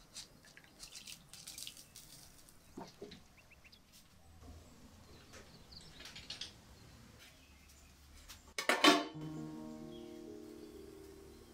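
Light clinks and knocks of kitchen utensils and dishes, then a sudden loud clatter near the end, after which soft instrumental music begins.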